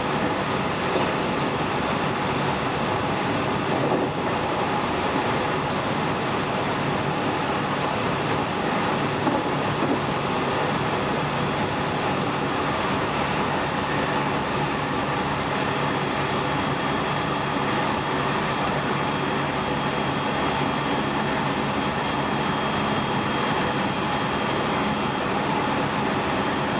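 Running sound inside a JR West 207 series 1000 subseries electric motor car, KuMoHa 207-1037, which has Toshiba GTO inverter traction gear. It is moving at steady speed with a continuous rumble of wheels on rail and several steady motor tones, and a thin high whine joins about halfway through.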